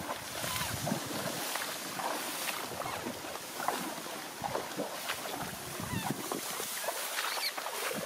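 Plastic sheet loaded with rice sheaves being dragged over rice stubble, crackling and rustling continuously.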